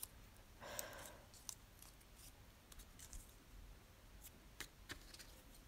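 Faint handling of paper: a short rustle about a second in, then scattered light ticks as small postage stamps and paper cut-outs are shifted and pressed on a journal page.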